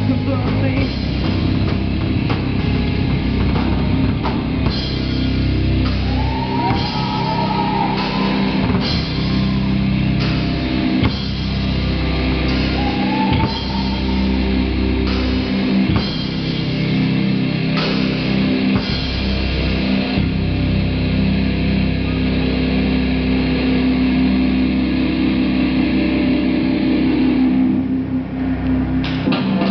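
Live rock band playing at full volume: electric guitars through amplifiers over a drum kit.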